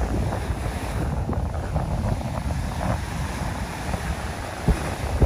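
Wind buffeting the microphone in a steady low rumble, over small waves washing up the sand, with a couple of low thumps near the end.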